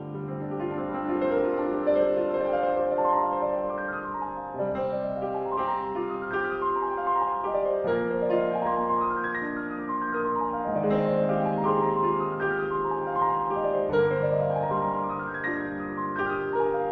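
Solo piano music: gentle runs of notes climbing upward, repeating about every three seconds over held low notes.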